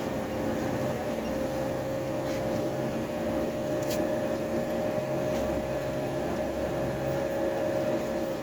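Inside a city bus driving between stops: steady engine and road rumble with a constant whine, and a couple of brief rattling clicks.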